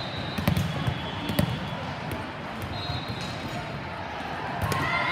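Volleyballs smacking and bouncing on a hard gym floor: sharp hits about half a second, one second and a second and a half in, and another near the end, over a murmur of voices.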